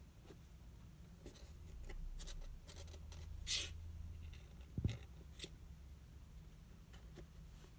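Faint scratching and rustling in a small room, with a short scrape about three and a half seconds in and a soft thump near five seconds.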